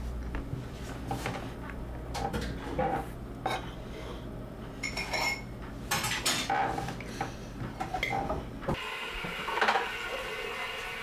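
Metal spoon clinking against a bowl several times as someone eats. About nine seconds in it changes suddenly to a tap running into a washbasin with a steady hiss.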